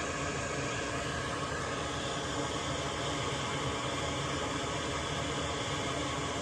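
Steady whir of a small fan or blower motor running on a soldering bench, an even hiss with a hum of several steady tones in it and no change throughout.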